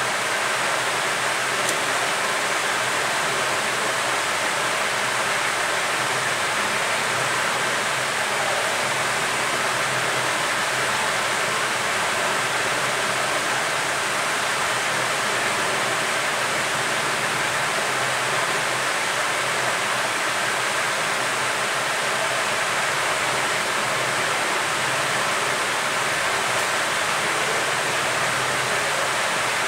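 Hot air rework gun blowing onto a mobile phone circuit board, a steady rushing hiss of air from its blower with a faint high whine.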